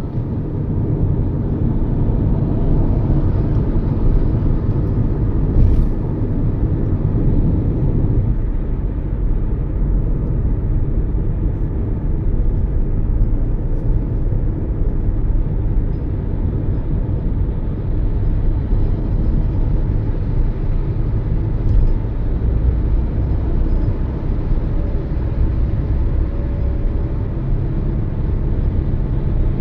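Steady low road rumble and engine hum of a Toyota Yaris cruising along a highway.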